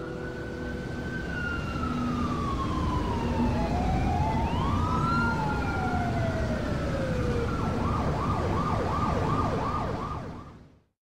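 Emergency-vehicle siren with slow rising and falling wails, two siren tones gliding past each other. About eight seconds in it switches to a fast yelp of about three cycles a second. A low rumble runs underneath, and everything fades out near the end.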